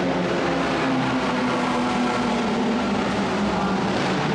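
Race car engines running, a steady drone whose pitch drifts slowly down and back up.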